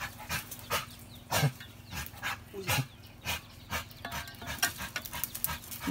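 A dog worked up by a cobra, panting and giving short barks in quick succession, with a few louder ones.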